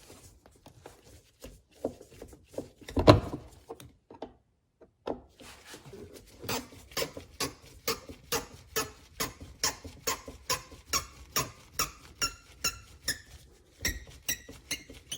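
A screw squeaking and clicking as it is backed out of the door trim with a No. 2 Phillips screwdriver. There is a single knock about three seconds in, then a regular series of squeaky clicks, about three a second, from about six seconds in.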